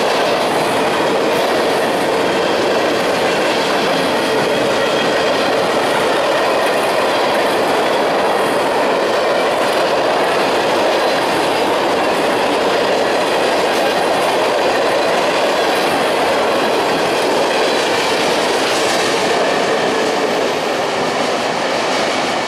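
Freight cars rolling steadily past at close range: steel wheels on rail making a continuous rumble with clicking over the rail joints.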